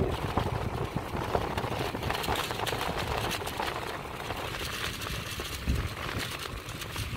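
Road and wind noise inside a moving car: a steady rumble and hiss with scattered small knocks.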